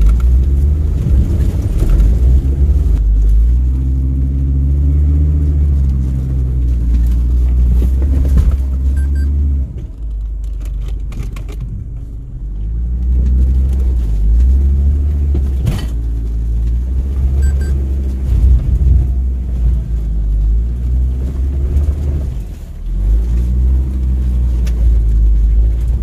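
Off-road vehicle's engine revving up and down over and over under load, with a heavy low rumble underneath and one sharp knock about two-thirds of the way through.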